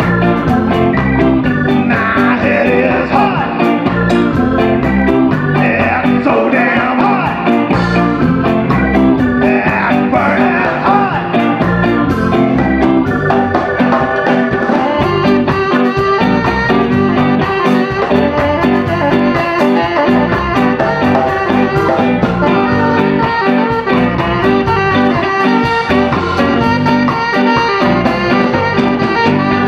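Live blues-rock band playing loudly: a tenor saxophone takes the lead over electric guitar, bass guitar, drums and an organ-sounding keyboard.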